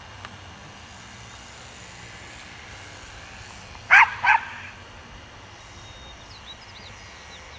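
A dog barks twice in quick succession about four seconds in, over the faint steady buzz of a radio-controlled model airplane's small engine.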